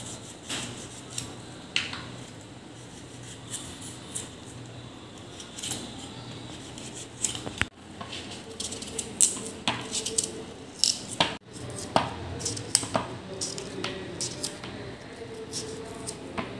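Small kitchen knife cutting muskmelon held in the hand, with scattered soft clicks and taps from the blade and from pieces dropping into a steel bowl, coming more often in the second half.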